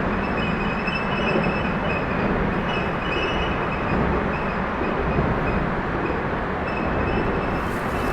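Traffic crossing the I-70 highway bridge, a steady heavy rumble. Over it the bridge gives out odd high-pitched whining tones that come and go several times.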